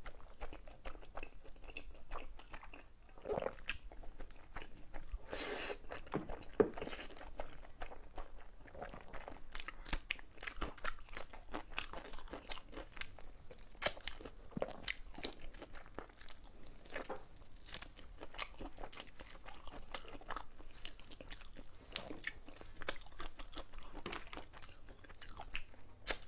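A person biting and chewing braised meat close to the microphone: many short, quick crackles and wet mouth clicks, growing denser about a third of the way in.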